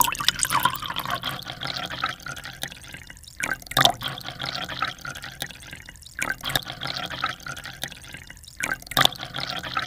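Liquor poured in a thin stream over ice into a cut-glass tumbler: a steady splashing pour with sharp clinks, loudest about four seconds in and again about nine seconds in.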